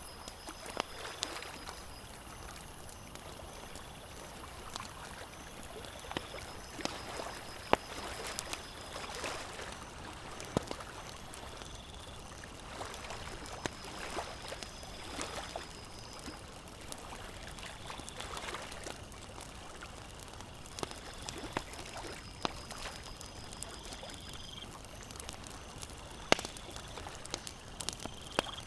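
Campfire crackling with scattered sharp pops, over the steady wash of small lake waves lapping.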